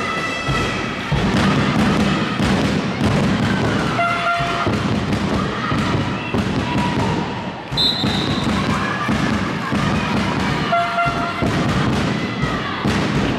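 A handball bouncing and thudding on a sports-hall floor amid the general din of a game in the hall, with voices and a few short high tones.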